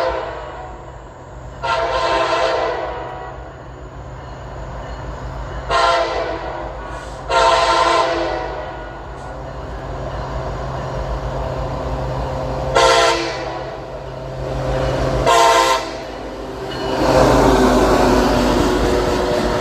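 Horn of Norfolk Southern EMD SD70ACC locomotive No. 1821 sounding five separate blasts, some about a second long and some shorter, over the steady low hum of its diesel engine. Near the end the train's noise swells to a loud, even rush.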